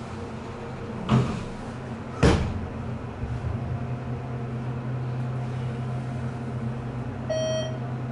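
ThyssenKrupp hydraulic elevator: the doors shut with two knocks about a second apart, then a steady low hum as the car rises. That hum is the hydraulic pump pushing the car up. A short single-note chime sounds near the end.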